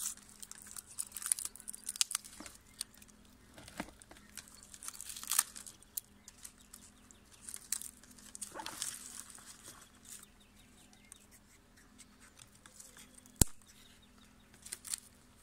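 Dry orchid leaf sheaths and dead flower stalks being pulled and torn away by hand, giving scattered crackling and rustling, with one sharp click about thirteen seconds in.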